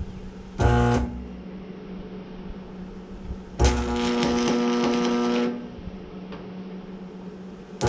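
AC stick welder striking arcs to tack steel: a brief buzzing, crackling arc about half a second in, a longer one of about two seconds, and another starting at the end, with a steady low hum between them.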